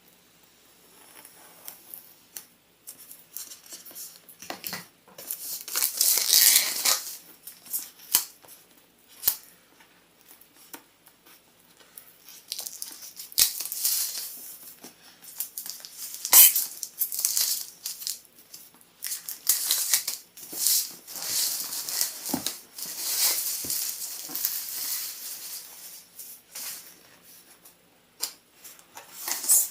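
Power supply's cardboard box and inner packaging being opened and handled: irregular rustling, crinkling and tearing-like scrapes, with a few small knocks.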